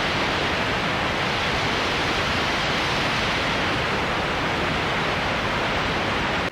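Steady rush of fast-flowing water, an even roar with no distinct events, cutting off suddenly at the end.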